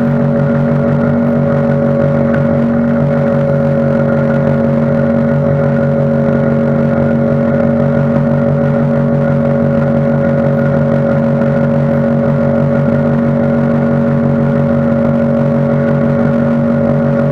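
Outboard motor running at a steady, unchanging pitch, pushing a Linder Catch 445 aluminium boat fast across the water.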